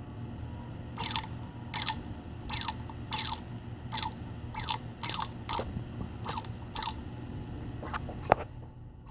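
A suspect bad bearing turning, making a short crunching click that falls in pitch about once every 0.7 seconds over a steady low hum, with one sharper, louder click near the end.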